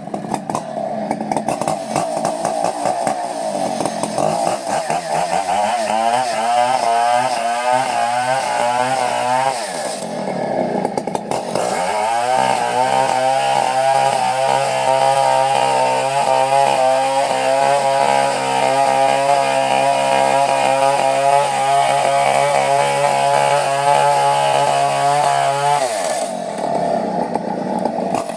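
Two-stroke chainsaw sawing coconut wood. The engine climbs in revs with a wavering pitch, eases off briefly about ten seconds in, then holds steady at high revs for about fourteen seconds before dropping and picking up again near the end.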